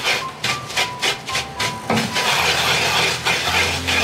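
Wooden pestle grinding sugar into a paste in a grooved ceramic suribachi mortar, with rhythmic scraping strokes against the bowl's ridges. The strokes run about two or three a second at first, then blend into a steadier scrape. This is the mixing of the sweet egg-omelette base.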